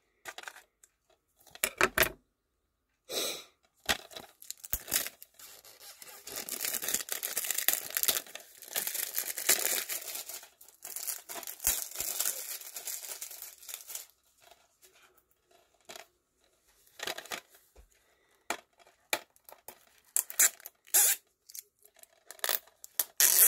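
Plastic shrink wrap being slit with a knife and torn off a DVD case: a long stretch of tearing and crinkling in the middle, with short scattered crinkles before and after.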